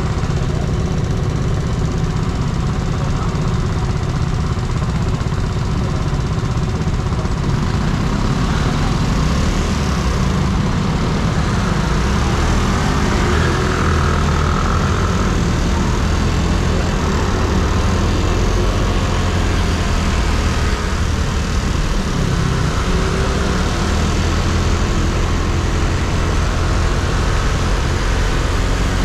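Yamaha Cygnus X scooter's single-cylinder engine running while riding, with steady wind and road noise.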